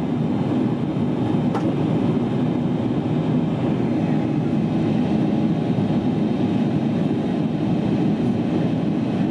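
Steady cabin noise of a Boeing 777-300ER in descent, heard from a window seat beside its GE90 engine: a dense, even low rumble of engine and airflow with faint steady tones above it.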